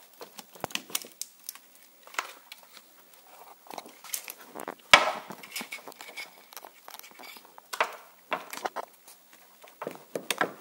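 Electrical tape on a car's wiring harness being cut with a hobby knife and pulled away to free a clip: a run of small crackles and tearing sounds, with one sharper click about halfway through.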